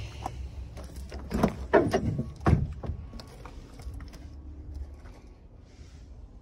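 Junked car's door swung open, its hinges giving three loud creaks in quick succession, followed by a few light clicks.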